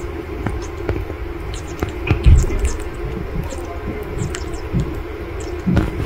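Quaker parrot eating banana: scattered small clicks of its beak biting into the fruit, with a dull knock about two seconds in, over a steady low hum.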